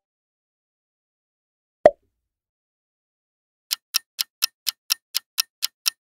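Clock-ticking sound effect of a quiz countdown timer: sharp, even ticks at about four a second, starting nearly four seconds in. Earlier there is a single short click about two seconds in, after a near-silent gap.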